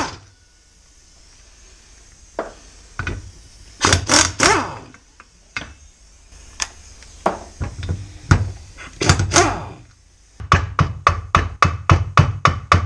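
Short bursts from a pneumatic impact wrench hammering at the flywheel nut of a Honda GX35 engine, with scattered clicks of metal parts between them. Near the end comes a quick, even run of sharp ringing taps, about three a second, struck on the engine.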